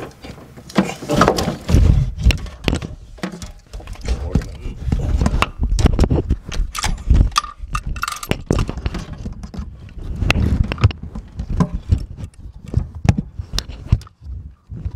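Irregular clicks, knocks and low thumps of hand work in a car's engine bay, mixed with handling of the phone close to the microphone.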